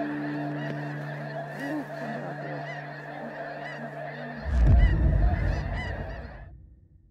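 A large flock of snow geese calling overhead in a dense, continuous chorus of short honks. About four and a half seconds in, a deep boom cuts in, and the sound then fades out.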